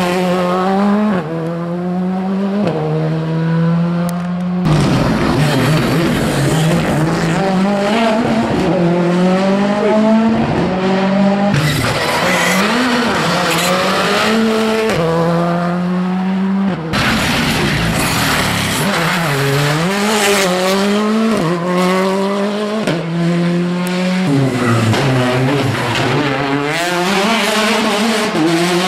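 Rally car engines, among them a Škoda Fabia R5, revving hard as the cars pass at speed, the pitch climbing through each gear and dropping at every shift. The sound cuts abruptly from one car to the next several times.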